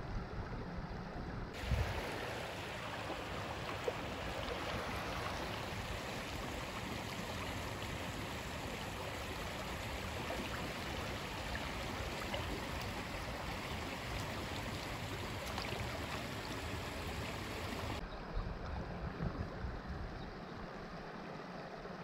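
Creek water rushing over rocks as a steady, even hiss. It starts suddenly about two seconds in and stops suddenly a few seconds before the end, over a low rumble that runs throughout.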